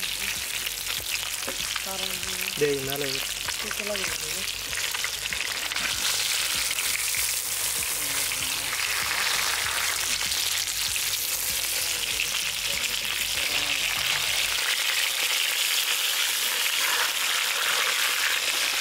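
Hot oil sizzling steadily around two whole masala-coated red pomfret shallow-frying in a wide pan, stirred by a perforated ladle spooning the oil over them.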